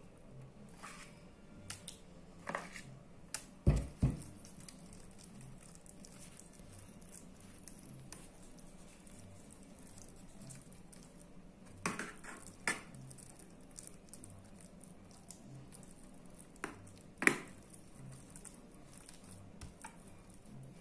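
A metal spoon clinking and scraping against an aluminium baking pan while a thick ricotta-and-spinach filling is spread over lasagna sheets, with scattered light clicks and two louder knocks about four seconds in.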